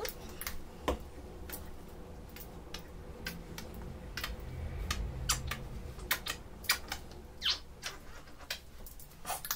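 Scattered light clicks and taps, about one or two a second, from small plastic acrylic paint bottles being handled and squeezed over bubble wrap on a table, with a low steady hum underneath.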